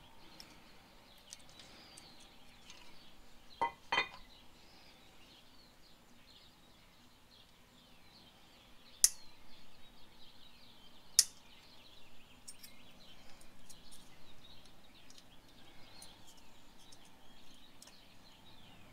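Small metal brake-pad hardware clips clinking and ticking as they are handled and a bent tab is straightened, with two sharp metallic clicks in the second half.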